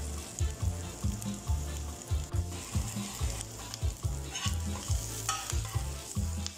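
Diced onions and garlic sizzling in a nonstick frying pan while a spoon stirs them, scraping and knocking against the pan about two to three times a second.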